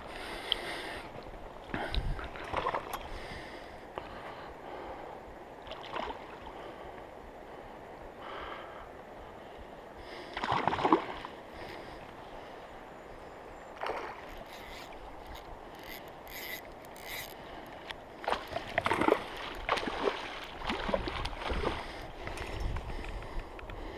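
Flowing river water with irregular splashes and sloshes at the surface as a hooked grilse, a young Atlantic salmon, is played on a fly rod. The loudest splash comes about eleven seconds in, and there is a cluster of them near the end.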